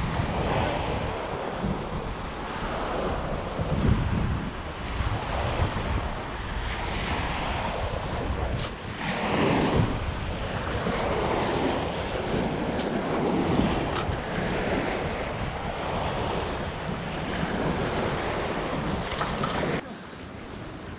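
Wind buffeting the microphone: a rough rushing noise with heavy low rumble that swells and fades in gusts, easing off shortly before the end.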